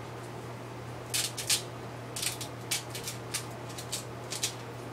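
Sea salt and pepper being dispensed onto cut-up peppers: a run of short, irregular, raspy strokes.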